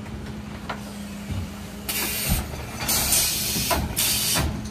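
Mercedes Econic refuse truck with a Faun Variopress body running with a steady hum. About two seconds in come three short bursts of hissing and a few knocks as a wheelie bin is handled at the rear lifter.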